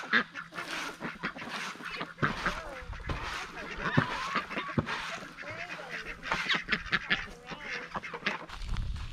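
A flock of farmyard poultry calling as feed is scattered for them: many short calls overlapping one another throughout.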